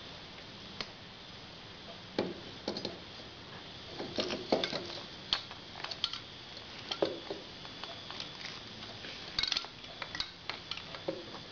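Scattered light metallic clinks and taps, irregular and a few seconds apart, as a Harley-Davidson Evolution Sportster 1200 cylinder barrel is handled and lowered over the piston and down the cylinder studs.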